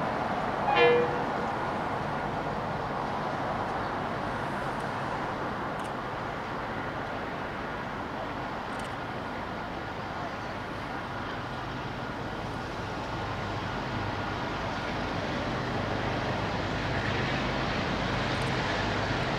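A short horn toot about a second in, then the steady low rumble of a KiwiRail DXC-class diesel-electric locomotive approaching, growing louder near the end.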